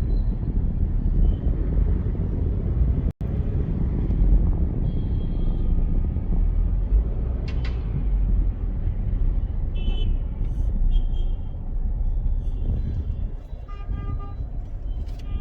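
Steady low road and engine rumble of a car driving through city traffic, with other vehicles' horns honking briefly several times, mostly in the second half. The sound cuts out for a split second about three seconds in.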